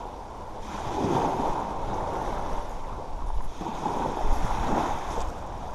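Small waves breaking and washing up a shelly beach, in two surges: one about half a second in, another about three and a half seconds in. A low rumble of wind on the microphone runs underneath.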